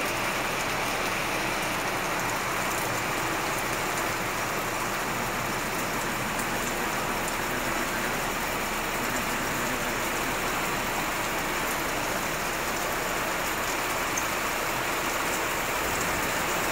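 Steady rain falling on the depot's sheet-metal roof, an even hiss that doesn't let up.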